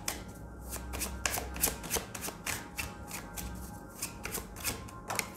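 A tarot deck being shuffled by hand: an uneven run of soft card flicks and slaps, several a second.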